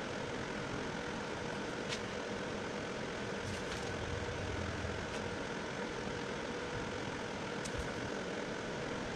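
Steady background hum with a faint steady tone, and a few light clicks as parts of the stand assembly are handled.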